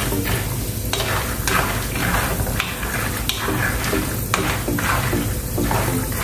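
Wooden spatula stirring peanuts and sliced garlic as they fry in oil in a nonstick pan. The oil sizzles and the peanuts rustle over the pan in repeated sweeps, with a few sharp clicks of the spatula against the pan.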